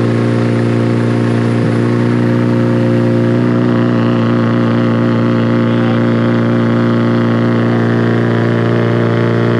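Turbocharged SR20DET four-cylinder in a Nissan 240SX S14 held at a steady 3,500 RPM under load on a dyno, making about 12 psi of boost, with its pitch constant throughout. Right at the end the throttle comes off and the engine note drops away suddenly.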